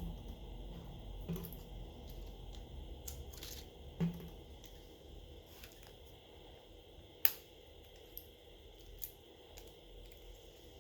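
Scattered small clicks and taps of tools and parts being handled during a smartphone teardown. There is a soft knock about four seconds in and a single sharp click about seven seconds in, followed by a few lighter clicks.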